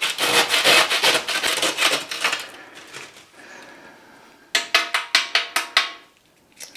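Stale, hard bread roll being grated by hand on a grater, a rapid series of rasping strokes that tail off after about two and a half seconds. Near the end comes a quick run of about eight sharp taps.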